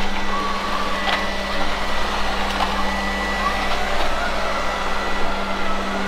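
Lefant F1 robot vacuum cleaner running on carpet: a steady motor hum with a thin, constant high tone.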